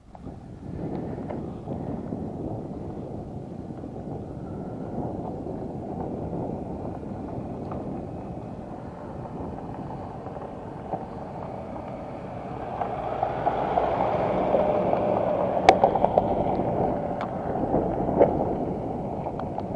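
BMW F650GS motorcycle riding along a rough track, with wind rumbling on the microphone. It grows louder about two-thirds of the way in, and a few sharp clicks and knocks come near the end.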